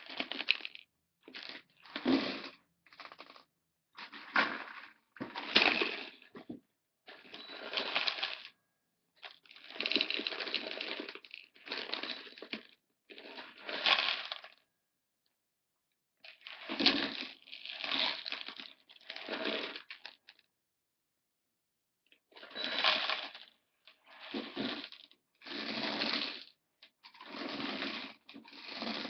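Small metal BBs rattling and clattering in a plastic gravity toy as it is tipped and worked by hand, in a string of bursts of about a second each with short pauses between them.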